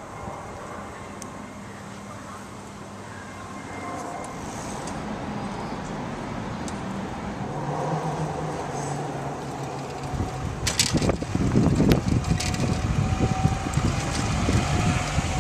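Vehicle going by outdoors, growing louder, with a rough rumble and a few sharp clicks from about ten seconds in.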